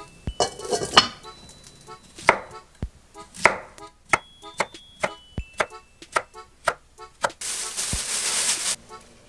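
A large kitchen knife slices a Korean zucchini into rounds on an end-grain wooden cutting board, with a run of crisp strokes about three a second. A glass pot lid clatters on just before, and a plastic bag rustles for about a second near the end.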